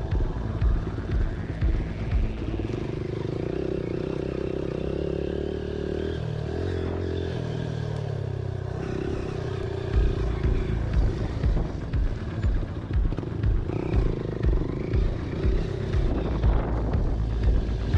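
Hero Impulse's single-cylinder motorcycle engine revving up and down in surges while riding over rough ground, with repeated low thumps and some clatter.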